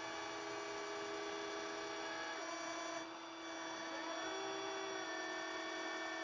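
Flatbed tow truck's winch running under load, dragging a minivan through snow. It is a steady mechanical whine whose pitch wavers slightly, dipping briefly about three seconds in.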